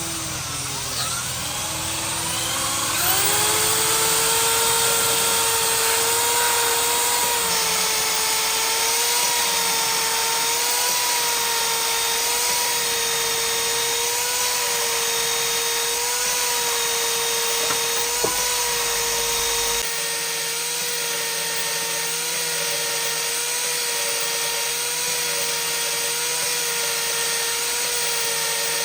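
Electric power tool motor running with a steady whine. It speeds up about three seconds in, then holds its pitch with a slight regular wobble about once a second.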